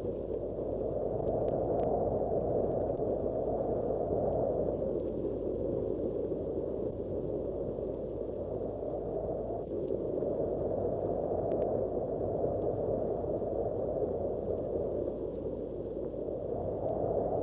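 Wind sound effect: a steady rush of wind, pitched fairly low, swelling and easing in slow gusts every few seconds.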